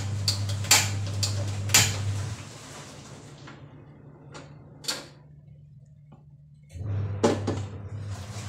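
Metal cooking pots and lids being knocked and set down on a gas stove as they are moved between burners: a run of sharp clanks, several in the first two seconds, a couple around the middle and more near the end. Under them a steady low hum drops out about two seconds in and comes back near the end.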